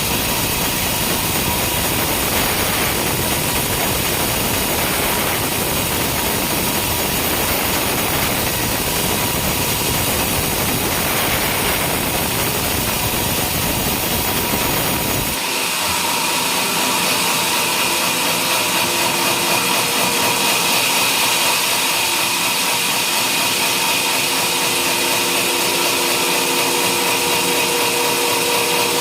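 Sawmill running and sawing a coconut-palm trunk, a loud, steady machine noise. About halfway through it changes abruptly: the low rumble drops away and a higher, steady whine with several tones takes over.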